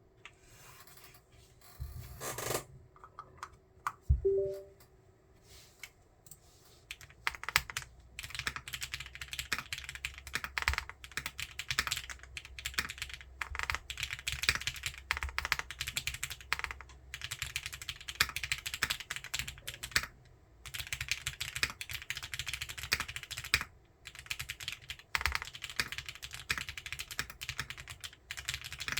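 Typing on an O-ring-mounted 60% mechanical keyboard with a polycarbonate case and plate, lubed and filmed broken-in Cherry MX Black linear switches and PBT keycaps. A few scattered keystrokes and one sharp knock come first, then fast continuous typing starts about seven seconds in, in runs broken by short pauses.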